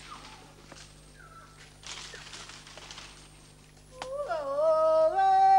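Faint forest sounds with a few short falling calls. About four seconds in, a loud high voice starts a song or call that slides between long held notes, like a yodel.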